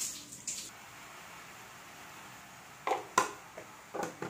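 A brief rush of running tap water at the start, then about four sharp clicks and knocks from a plastic kitchen jar being handled and its lid worked, beside a pan of milk tea on a gas stove.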